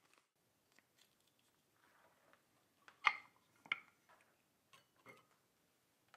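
Sparse light clicks and taps of small hard objects being handled, with two sharper clicks a little over half a second apart about three seconds in.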